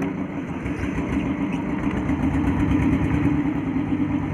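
Fishing boat's engine running steadily at a constant speed, a low, fast pulsing drone with a haze of noise above it.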